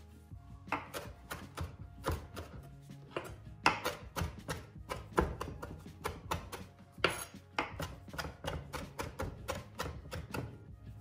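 Chef's knife chopping fresh coriander on a plastic cutting board: quick runs of sharp knocks, several a second, with short pauses between runs.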